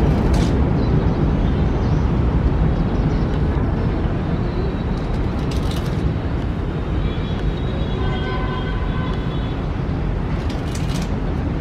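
Steady low outdoor rumble and hiss with a few brief scratchy noises. Faint thin whining tones come in about two-thirds of the way through.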